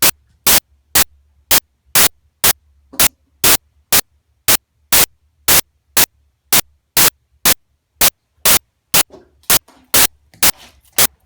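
Short bursts of static-like noise repeating evenly about twice a second, over a faint low hum.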